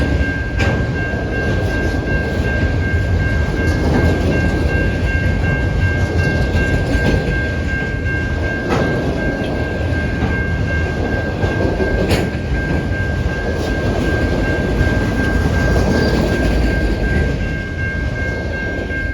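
CPKC freight train's cars rolling past on the rails with a steady, loud rumble, a steady high whine over it and an occasional click.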